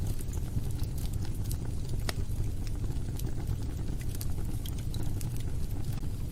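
Wood fire burning in a fireplace: a steady low rumble of flames with scattered sharp crackles and pops, one louder pop about two seconds in.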